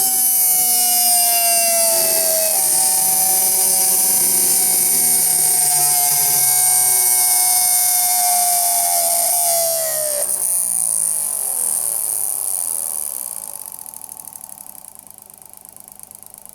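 Electric motor running with worn-out bearings, making a loud howl with a high hiss over it. Its whine slowly falls in pitch, drops away about ten seconds in, and then the sound fades to a quieter pulsing near the end.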